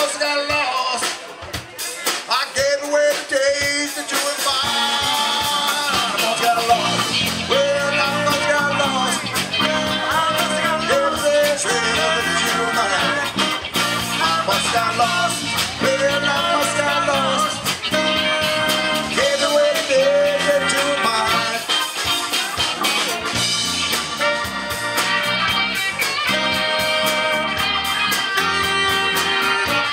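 Live band playing a blues-rock song, a male singer's voice over horns, keyboard, guitar, bass and drums.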